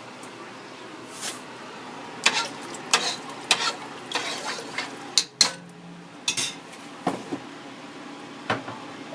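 Kitchen clatter: pots and metal utensils clinking and knocking, a string of short separate strikes at an uneven pace.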